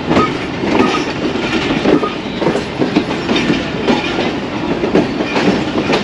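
Passenger train running along the line, heard from its last coach: a steady rumble with the wheels knocking over rail joints again and again.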